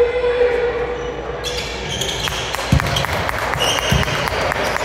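Basketball game sounds on a gym court: a steady mid-pitched tone for the first second and a half, then sneakers squeaking sharply on the hardwood and a ball bouncing twice with deep thumps.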